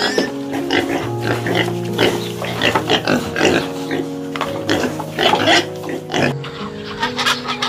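A group of young pigs grunting, many short calls overlapping one another, over background music with long held notes.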